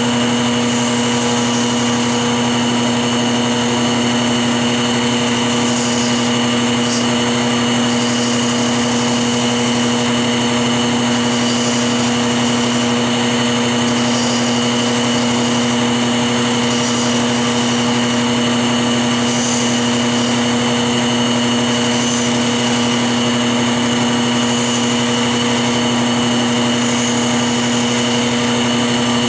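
Wood lathe motor running at speed with a steady hum, while a hickory spindle is sanded by hand as it spins, adding a hiss that rises and falls.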